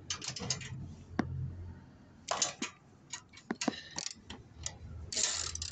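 Socket ratchet clicking in short irregular runs as a bolt holding the hybrid battery pack is undone, with louder rustling handling noise about two and a half seconds in and again near the end.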